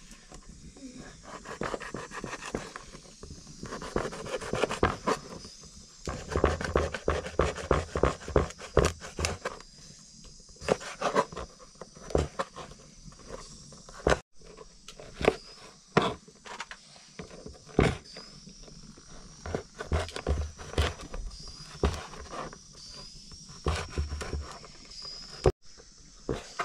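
Kitchen knife chopping dried buffalo meat on a plastic cutting board: sharp knocks, in quick runs of strokes with short pauses between.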